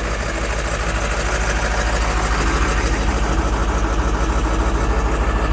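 Ford diesel tow truck engine idling steadily on a cold start, its fuel treated with Diesel 911 anti-gel additive. The engine's level rises a little over the first couple of seconds, then holds even.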